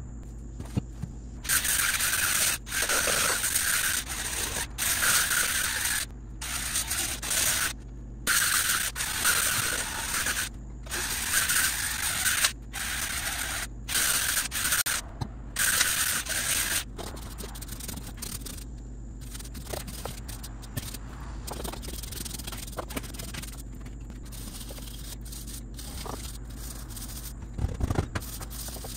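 Stiff nylon and boar-bristle brush scrubbing rough log faces to clear leftover cement, in quick back-and-forth strokes with short breaks between them. The scrubbing stops a little past halfway, leaving faint scuffs and a couple of knocks near the end.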